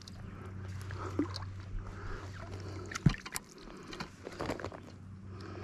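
Light water splashes and handling noises as a small smallmouth bass is held at the water's surface, with scattered clicks from the fishing rod and reel and one sharp knock about three seconds in, over a low steady hum.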